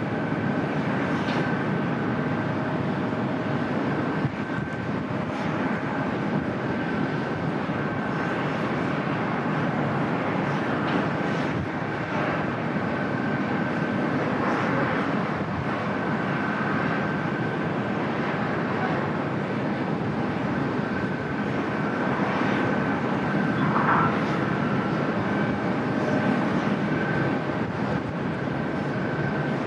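Jet airliner engines running steadily on the airfield: an even rush with a thin steady whine over it, and no rise or fall in loudness.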